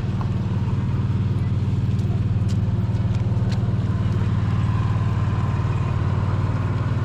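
A vehicle engine running steadily at low revs, a low even hum with a fast regular pulse, and a few faint ticks about two to three and a half seconds in.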